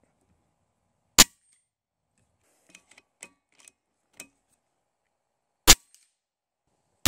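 Three shots from a KalibrGun Cricket 2 Tactical .22 PCP bullpup air rifle: sharp cracks about a second in, near six seconds and at the very end. A few faint clicks fall between the first two shots.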